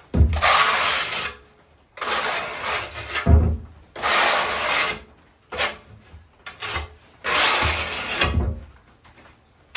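Trowel scraping thinset mortar across the back of a porcelain floor tile, back-buttering it with a thin coat: four long strokes of about a second each, with a few light clicks between the third and fourth.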